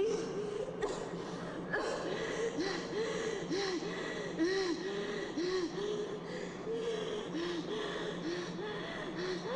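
A woman coughing in a rapid, continuous fit: short voiced coughs and gasping breaths, several a second, over a faint steady hum.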